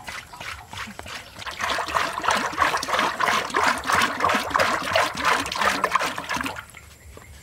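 Cooking oil poured in a thick stream from a large plastic jug into a wide metal wok, splashing and trickling. It grows louder about a second and a half in and falls away near the end.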